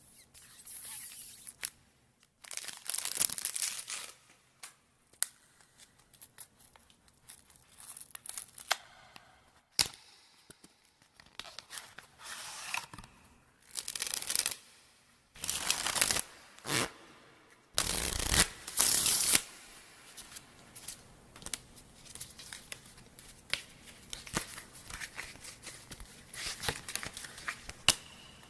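A deck of playing cards being handled and shuffled: irregular rustling, riffling bursts a second or two long with small clicks and snaps in between, the loudest burst about eighteen seconds in.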